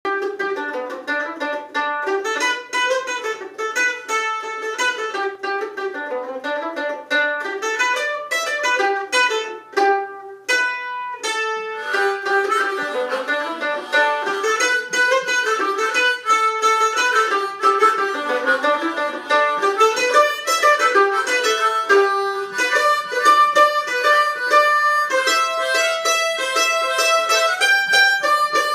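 Harmonica and a small strummed string instrument playing a tune together, the harmonica holding sustained notes over a quick strummed rhythm. The accompaniment thins out briefly about ten seconds in.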